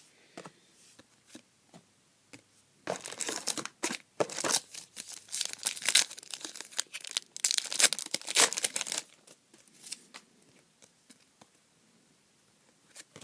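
Trading-card pack wrapper being torn open and crinkled: a dense run of tearing and crinkling for about six seconds, starting a few seconds in, then a few light scattered clicks and rustles.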